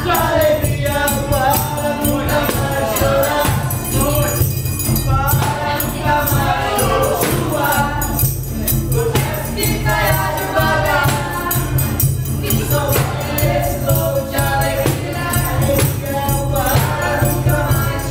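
Several people singing together to a strummed acoustic guitar, with a tambourine jingling in rhythm.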